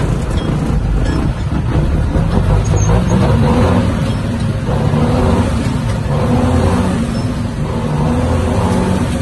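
Diesel engine of a dump truck running while driving, heard from inside the cab, its loudness swelling and easing a few times.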